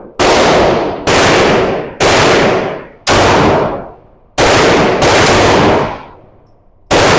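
Gunshots from a handgun or rifle fired one at a time at a steady pace, about one a second, about eight shots in all. Each shot rings on and dies away over most of a second, and two come close together in the middle.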